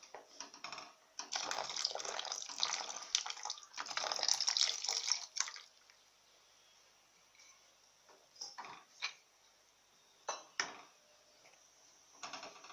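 Wooden spoon stirring hot milk in a pan as custard powder mixed with water is stirred in: liquid swishing and splashing for about five seconds, then a few short splashes and scrapes of the spoon.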